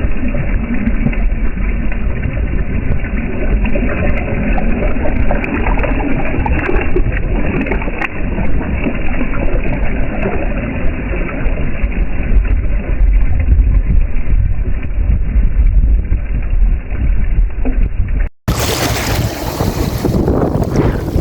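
Strong wind buffeting the microphone: a loud, steady low rumble. It cuts out for an instant about eighteen seconds in and comes back with more hiss.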